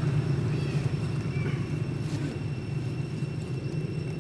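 A steady low engine rumble, with a faint steady high-pitched whine above it.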